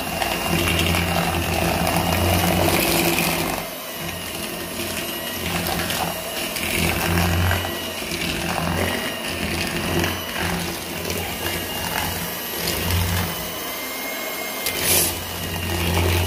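Electric hand mixer running, its twin beaters creaming butter and sugar in a plastic bowl. The motor's hum swells and dips as the beaters are moved through the mixture, and it stops at the very end.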